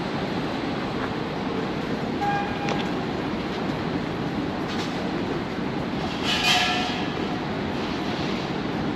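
Steady rumble of passing vehicles in a city street, with a short high tone about two seconds in and a louder brief hissing rush with several ringing tones about six and a half seconds in.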